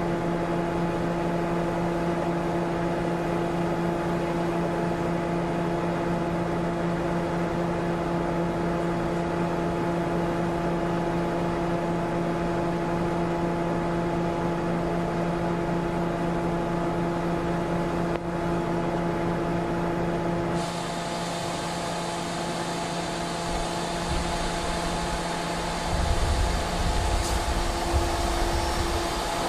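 A steady engine hum with several held tones, like a vehicle idling. Over the last few seconds a deeper engine rumble and the wash of floodwater come in as a truck drives through the deep water and throws up spray.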